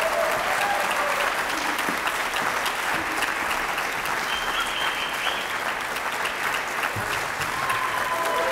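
A theater audience applauding steadily, many hands clapping together, to welcome a speaker to the stage.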